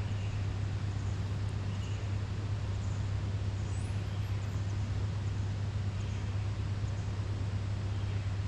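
A steady low mechanical hum that does not change, under an outdoor background haze, with faint short chirps recurring about once a second.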